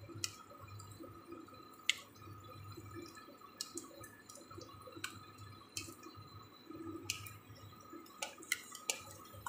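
Egg-battered pieces of jenang frying in hot oil in a wok: a soft sizzle broken by sharp pops and spits of oil roughly every second, several close together near the end, with a faint steady hum underneath.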